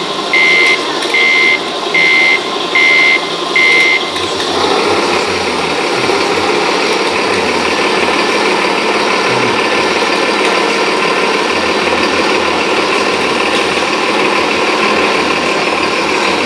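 A radio-controlled truck's reversing beeper sounds about five times, roughly 0.8 s apart, and stops about four seconds in. A steady truck running sound with a faint whine carries on.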